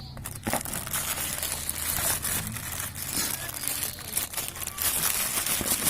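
Packaging crinkling and rustling as a product box is opened, with many small crackles and clicks.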